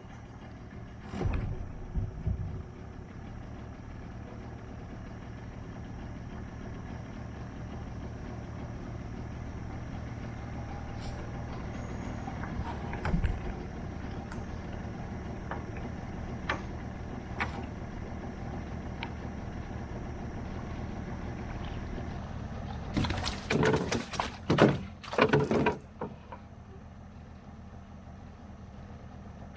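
Boat engine idling steadily, with scattered knocks and a run of loud, noisy bursts late on as a hooked catfish is brought in on a limb line.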